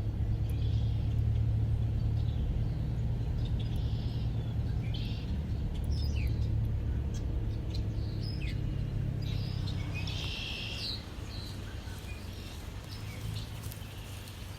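A steady low engine hum, like a vehicle idling, with scattered bird chirps and short falling calls over it. The hum drops off a little after about ten seconds.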